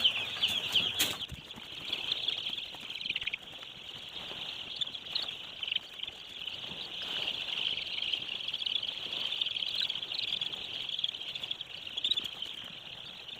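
A flock of day-old broiler chicks peeping together in a steady, dense chorus of high chirps, with a light knock about a second in.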